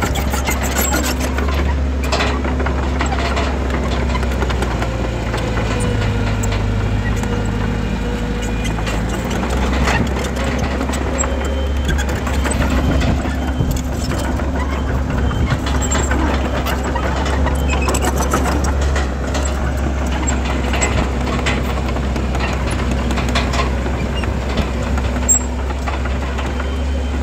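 Heavy diesel earthmoving machinery running steadily with a deep hum. The engine's pitch shifts briefly around five to nine seconds in, and a few short knocks come through.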